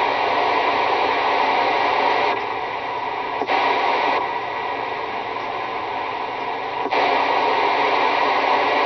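CB radio hiss and static: a steady rush of noise with no voice on it, stepping up and down in loudness a few times, with clear jumps at about 2.4 s, 4 s and 7 s.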